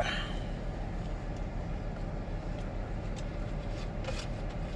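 Steady low hum of an idling car, with a short rustle at the start and a few faint clicks.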